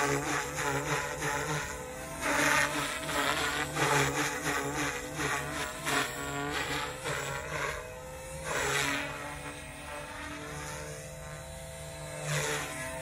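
Lynx Oxy 2 micro RC helicopter's electric motor and rotor whine, rising and falling in pitch as it swoops and changes load. It surges loudest several times, then runs quieter with falling pitch in the last few seconds.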